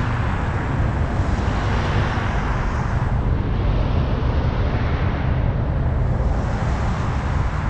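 Steady low rumble of road traffic noise and wind on the microphone from a car rolling slowly in a packed line of traffic. A higher hiss fades about three seconds in.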